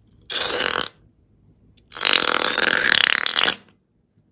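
Slime-filled rubber balloon squeezed through its freshly snipped tip: air and glossy slime sputter out of the opening in two bursts, a short one and then a longer fluttering one.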